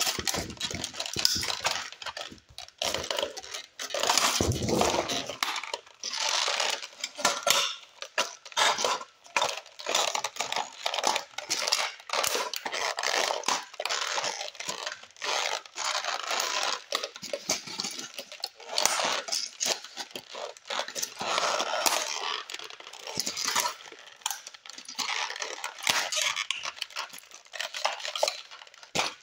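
Toy model cars being crushed and ground underfoot on a concrete floor: continuous cracking and crunching of plastic and metal, scraping, and small broken pieces clinking. A heavier crunch comes about four seconds in.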